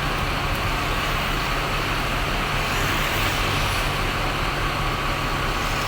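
Diesel bus engine running steadily: an even low hum under a constant wash of street noise.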